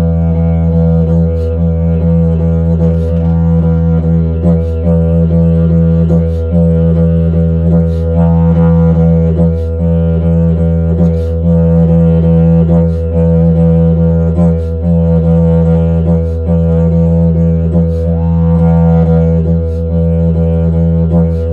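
Didgeridoo playing a continuous low drone with no break, pulsed by a short rhythmic accent about every second and a half. Twice, about a third of the way in and near the end, the tone brightens in a sweep and then settles back.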